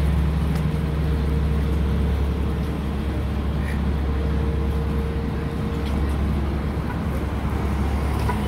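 Road traffic at a city intersection: a steady low engine rumble with a faint hum over it, from vehicles idling and moving nearby.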